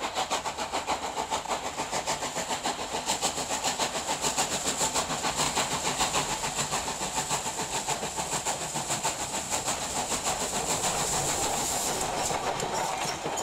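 Steam-hauled passenger train passing at speed: a fast, even rhythm of beats with steam hiss, smoothing into a steadier rush of coaches rolling by near the end.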